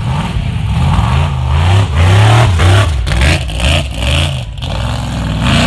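Formula offroad car's engine revving hard as it climbs a muddy track with its wheels spinning, the pitch rising and falling again and again.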